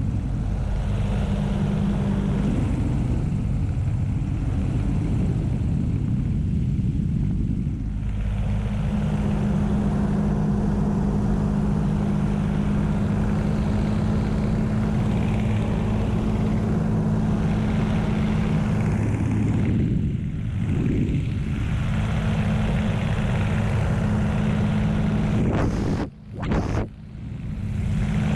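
Curtiss P-40 Warhawk's V-12 piston engine and propeller running steadily in flight, heard inside the cockpit with airflow noise. The drone dips briefly twice, sharply, near the end.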